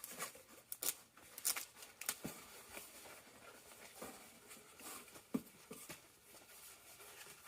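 Sheets of craft vinyl and their packaging being handled: irregular rustling and crinkling with scattered small taps and clicks.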